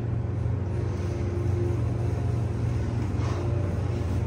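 Hydraulic elevator's pump motor running as the car rises: a steady low hum with a higher steady tone over it.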